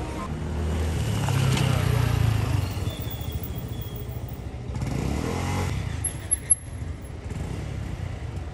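Street traffic: a motor vehicle's rumble swells and passes in the first three seconds, and a second vehicle passes around five seconds in. A couple of sharp clicks come about six and a half seconds in.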